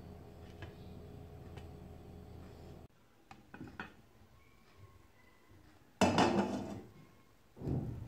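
Glass pan lid with a stainless-steel knob being handled: a steady low hum under the covered pan gives way to small clinks as the lid comes off. About six seconds in comes a loud clatter, and a second, duller knock follows near the end.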